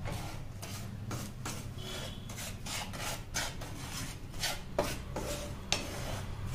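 Wooden spatula scraping across a nonstick pan, stirring milk powder and sugar in hot ghee in quick repeated strokes, about two a second: the dry mix being worked together at the start of homemade condensed milk.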